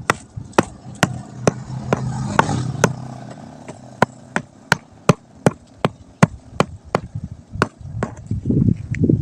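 An even series of sharp knocks, a little over two a second, throughout. A low motor hum passes under them about two seconds in.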